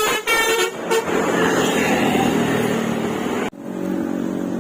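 Bus telolet horn sounding its last quick run of notes, then a loud rush of the bus passing close by. About three and a half seconds in the sound cuts off abruptly and a steady engine hum follows.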